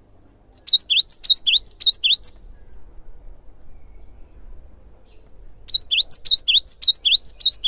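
Cinereous tit (gelatik batu) singing: two quick runs of repeated high, falling whistled notes, about three seconds apart.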